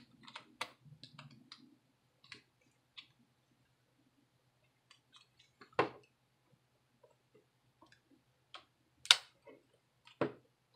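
Scattered small clicks and taps of a small screwdriver tip prying at the plastic parts of a cellphone's frame, with a few sharper single clicks about six, nine and ten seconds in.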